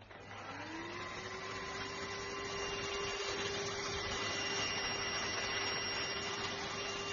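ENOLUX K7 Pro cordless stick vacuum cleaner switched on: its motor spins up with a rising whine over about the first second, then runs steadily with a rush of air.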